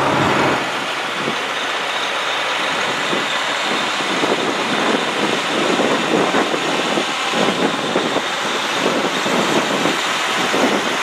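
A line of heavy diesel tow trucks creeping past in procession, their engines running under a steady rushing noise with uneven fluttering.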